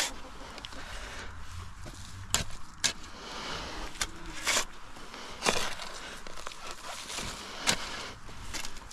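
Steel shovel digging and scraping into soft soil, about half a dozen sharp scrapes and knocks at uneven intervals over a rustling background.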